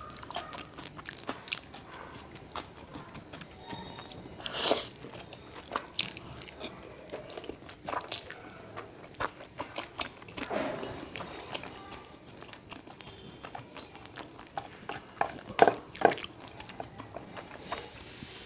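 Close-miked chewing and mouth sounds of a person eating saucy instant noodles: many small, irregular wet clicks and smacks, with a few louder bursts, the loudest near the end.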